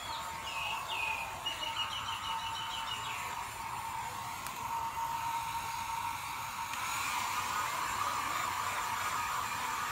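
Handheld electric hair dryer blowing steadily while drying a wet cat's fur, a little louder from about seven seconds in.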